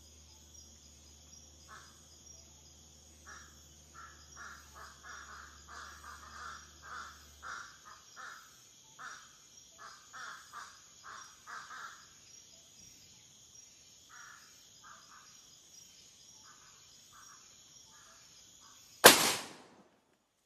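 Steady insect drone with a run of short, harsh animal calls repeating through the middle, then a single loud gunshot near the end that rings out for about a second.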